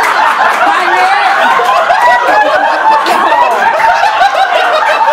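Several people laughing loudly together, their laughter overlapping without a break.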